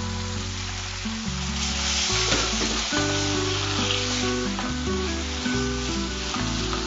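Chicken and raw-mango masala sizzling in a hot frying pan as it is stirred with a spatula, the sizzle set off by a splash of water poured into the hot oil. The sizzling is strongest about two to four seconds in. Background music plays underneath.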